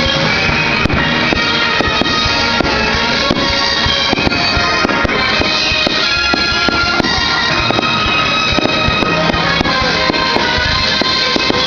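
Loud music with sustained tones, with fireworks popping and crackling in short sharp bangs at irregular moments.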